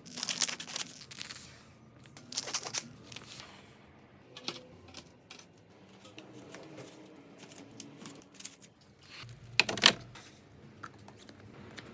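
Groceries and containers being handled as a refrigerator is stocked: plastic packaging rustling, with light clinks and knocks of items being set down. The loudest knock comes near the end.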